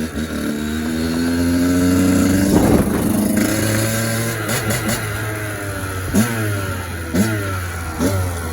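Kawasaki KX85 single-cylinder two-stroke engine being ridden hard. Its pitch climbs steadily for the first two and a half seconds under throttle, then there is a short burst of noise about three seconds in. Near the end come several quick rises and drops in pitch as the throttle is worked.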